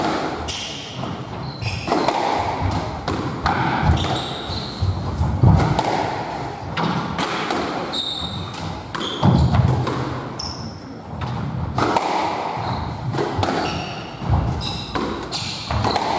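Squash rally: the ball smacking off rackets and thudding against the court walls again and again, with short high squeaks of shoes on the wooden floor.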